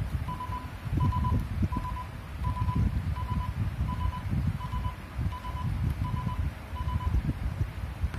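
A short electronic beep repeating evenly, about every 0.7 seconds, ten times, and stopping near the end, over a low uneven rumble.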